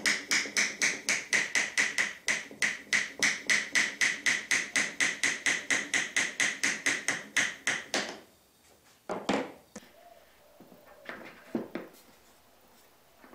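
Small steel-headed Japanese hammer (genno) tapping a wooden piece along a slot cut in a timber: rapid, even taps at about four a second, each with a short ring at the same pitch, stopping about eight seconds in. After that come a few softer knocks as the wooden pieces are handled and fitted together.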